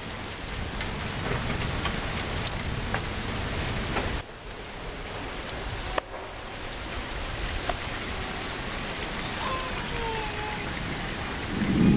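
Steady rain falling during a severe thunderstorm, an even hiss with two brief dips in the middle.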